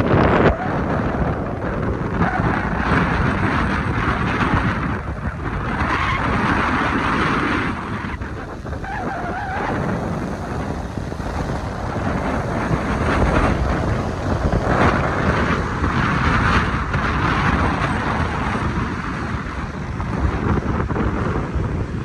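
Wind buffeting a moving microphone, swelling and easing every few seconds, over a low rumble of road and traffic noise.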